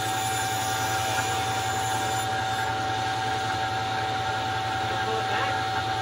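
Table saw running steadily, its motor giving a constant whine over an even rush of noise.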